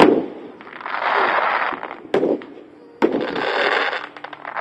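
Aerial fireworks shells bursting: sharp bangs just after two seconds and at three seconds in, the second followed by about a second-long rush of noise, with more quick cracks near the end.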